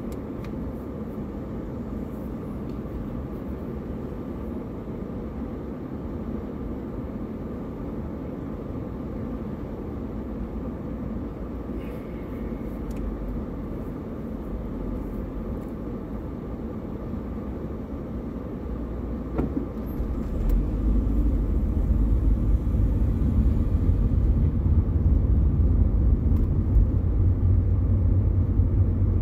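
Car interior noise: a steady low engine hum while the car idles at a standstill. About two-thirds of the way in, the deep rumble grows louder as the car pulls away and drives on, with engine and tyre noise.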